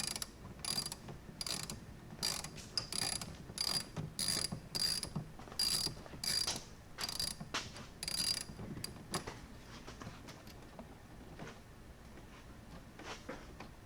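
Hand ratchet wrench clicking in short back-and-forth strokes, about fifteen quick raspy bursts over the first nine seconds, then stopping.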